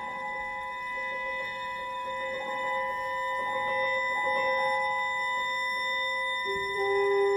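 Contemporary chamber music from an ensemble of clarinet, horn, piano, violin and cello: layered long held notes that change slowly, with a lower, louder held note coming in about six and a half seconds in.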